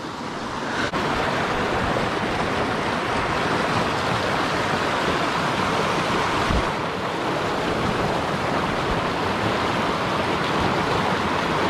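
Mountain creek rushing over a rocky cascade: a steady, loud wash of whitewater that grows a little louder about a second in.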